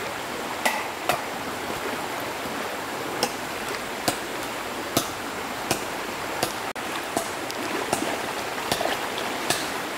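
Steady rushing of running water, like a stream, with sharp knocks or taps roughly once a second over it.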